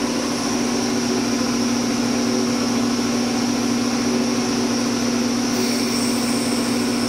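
Premier BCM047 1 HP belt-driven electric air compressor running steadily on its first start, a constant hum from the motor and pump as the 100-litre tank begins to fill.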